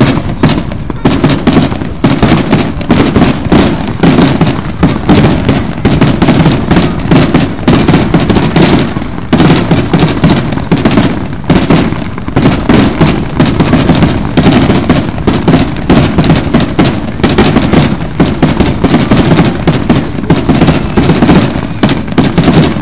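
Fireworks display in a rapid barrage: shells launching and bursting many times a second without let-up.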